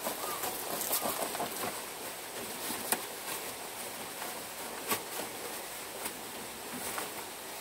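Rustling of a nylon snowboard glove and jacket as the glove is pulled onto a hand, with a few sharp clicks about two seconds apart.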